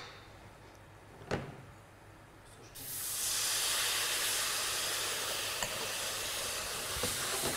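White wine hitting a hot pan of toasted Arborio rice and onion in olive oil, hissing and sizzling as it boils off in steam: the deglazing step of a risotto. The hiss starts suddenly about three seconds in and stays steady, after a single short knock about a second in.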